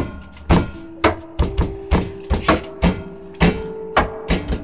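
Music: sharp percussive hits, about two a second in an uneven rhythm, over a held low note that steps to a new pitch a few times.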